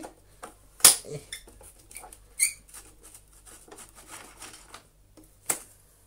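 Hands working on the brush roll housing of an old Hoover Junior upright vacuum: light clicks, taps and scrapes of plastic and metal parts, with a sharp click about a second in, a brief squeak a couple of seconds later and another click near the end.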